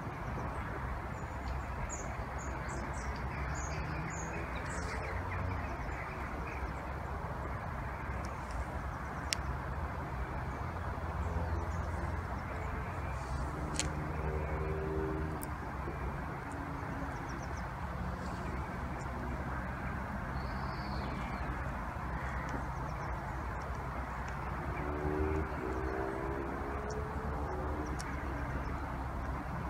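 Birds chirping and calling over a steady low rumble of outdoor background noise, with a couple of sharp clicks.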